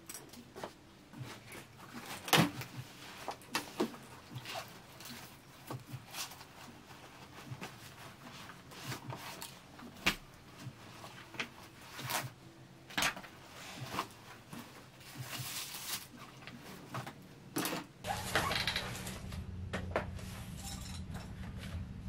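Household handling sounds: irregular light knocks and clicks of objects being moved and set down. About 18 seconds in, a steady low hum starts under them, like an appliance switching on.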